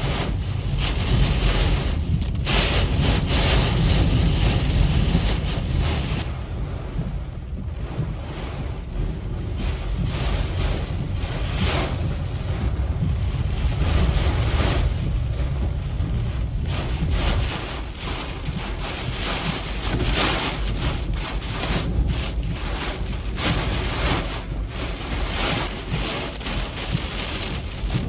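Hurricane-force eyewall winds with wind-driven rain: a loud low rumble of wind buffeting the microphone under a rushing hiss that surges and eases in gusts every few seconds.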